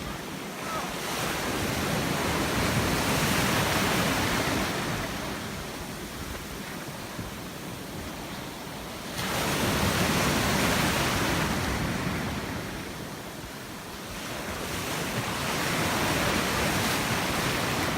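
Ocean surf breaking on a beach, its rushing noise swelling and fading in slow waves several seconds apart, with a sudden surge about halfway through. Wind buffets the microphone.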